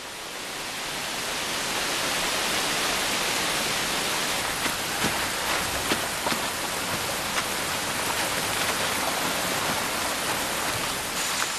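Steady rain falling, an even hiss with scattered drop ticks, fading in over the first couple of seconds.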